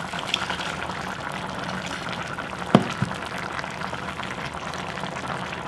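Pork-belly kimchi stew bubbling steadily in a pot over medium heat, with a single sharp knock just under three seconds in.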